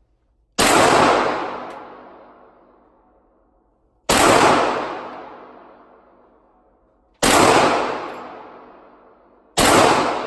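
Four single gunshots a few seconds apart. Each is loud and followed by a long echoing decay from an indoor range lane.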